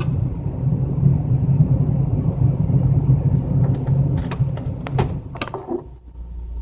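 A car's cabin ventilation blower fan runs steadily. About four to five seconds in, there are sharp plastic clicks as a fuse is worked out of the dashboard fuse box. Then the blower winds down and stops, its fuse pulled, leaving a fainter low hum.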